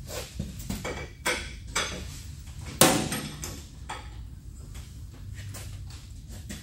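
Metal clinks and knocks from a spanner working the lathe's leveling screws as they are slackened off, with one loud metallic clank that rings on briefly about three seconds in.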